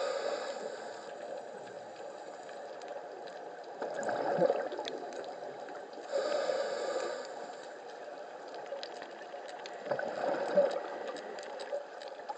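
Scuba diver breathing through a regulator underwater: a hissing inhale at the start and again about six seconds in, and a burst of exhaled bubbles about four seconds in and again near ten seconds. Faint crackling clicks run underneath.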